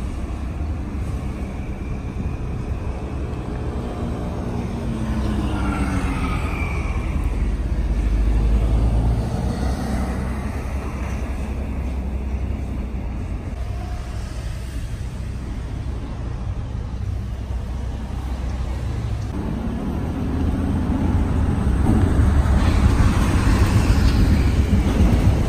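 Car driving on a road: a steady low rumble of engine and tyre noise. It swells a little about a third of the way in and louder again near the end, as of passing traffic.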